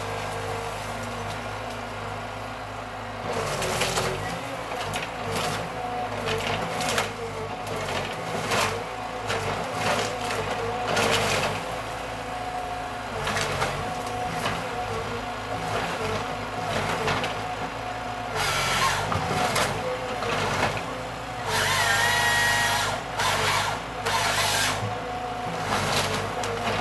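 Wheeled forestry harvester running its diesel engine steadily with hydraulics working, while the harvester head grips and feeds a felled tree: from a few seconds in, repeated sharp cracking and snapping as branches are stripped and broken. A short higher whine from the machine about three quarters of the way through.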